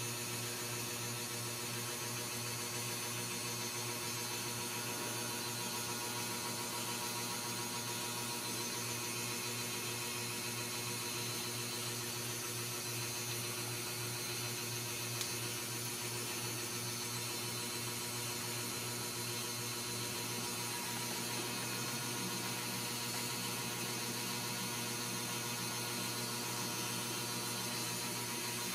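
A steady, unchanging hum with faint high tones above it.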